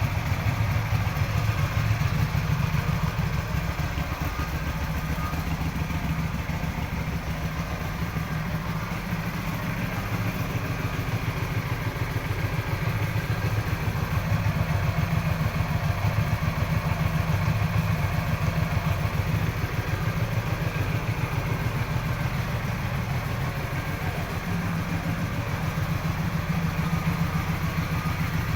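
Keeway Benda V252C motorcycle's V-twin engine idling steadily with a deep, bassy exhaust note.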